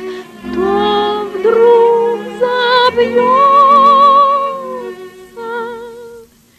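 A woman singing a slow, lyrical song with vibrato and long held notes, over instrumental accompaniment; the phrase fades out near the end.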